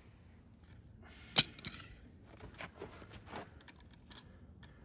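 A single sharp knock about a second and a half in, followed by a few softer knocks and scrapes as tools are handled during slag removal.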